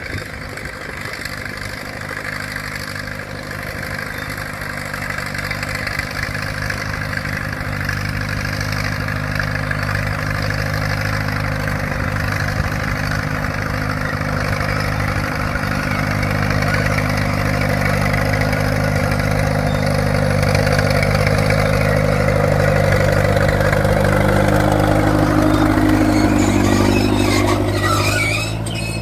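Ford Major tractor's four-cylinder diesel engine running steadily and growing gradually louder, its pitch rising a little near the end.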